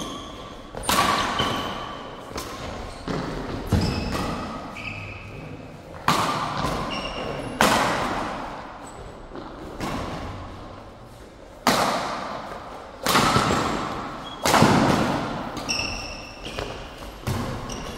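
Badminton rackets hitting the shuttlecock in a doubles rally: a dozen or so sharp hits a second or two apart, each ringing on in the large hall. Short high squeaks of court shoes on the mat come between the hits.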